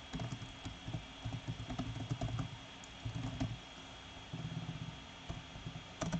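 Computer keyboard typing in several short bursts of keystrokes with brief pauses between them.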